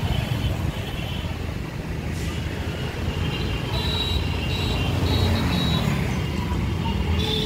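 Road traffic noise: a steady low rumble of passing vehicles, with a few short, faint high tones around the middle.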